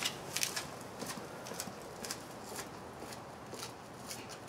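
Footsteps on a concrete path, about two a second, fainter as the walker moves away.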